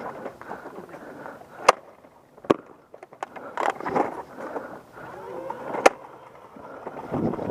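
Three sharp clacks from foam dart blasters, spread unevenly over several seconds, over a low rustle of movement and faint distant shouting.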